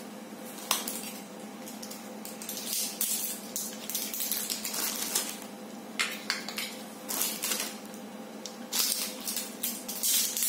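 Batteries being fitted into a small plastic tent lantern: irregular clicks, taps and rattles of hard plastic and metal, in clusters.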